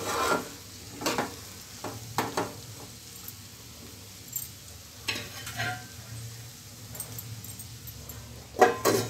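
Steel spoon stirring and scraping brinjal and chana dal curry around a stainless steel pot, in strokes about once a second over a faint sizzle. A louder metal clatter comes near the end.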